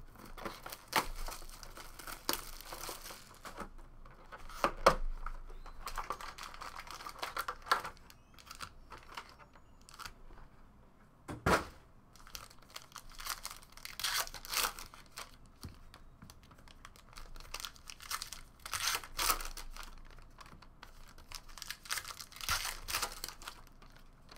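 Foil trading card packs being torn open and crinkled by hand, with a few sharp clacks as packs and cards are set down on the table.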